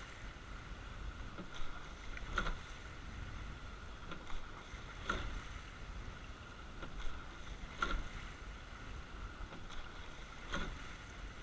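Racing eight rowing at a steady rate of about 22 strokes a minute. Once each stroke, about every two and a half to three seconds, there is a knock from the oars turning and catching in their oarlocks with a splash of blades, over a steady hiss of water along the hull.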